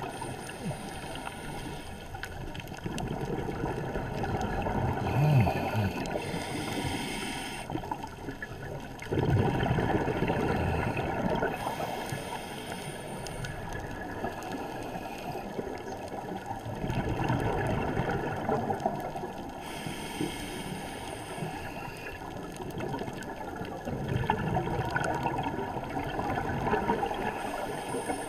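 Scuba diver's regulator breathing heard underwater: a hissing inhale followed by a burst of bubbling exhale, repeating about every seven to eight seconds, four breaths in all.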